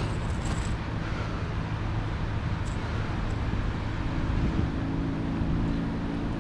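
Steady rushing of water over a small spillway, heavy and rumbling at the bottom, with a low steady hum joining about four seconds in.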